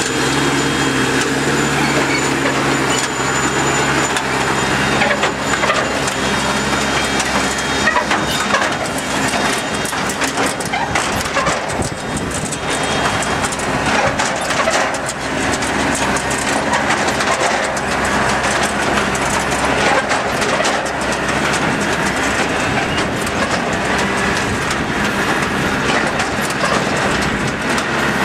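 Automatic turf harvester running: a steady engine drone under the continuous clatter of its chain conveyors and stacking mechanism as cut turf slabs are carried through.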